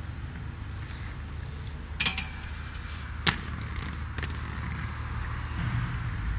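Inline skating: a steady low rolling rumble, with a metallic clank about two seconds in that rings for about a second, then a sharp knock about a second later and a fainter one after that.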